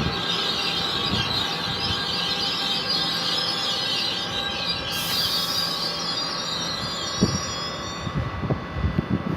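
Passenger train rolling along the track, its wheels squealing against the rails in several steady high tones over the rumble. The sound thins toward the end, with a few low thumps near the end.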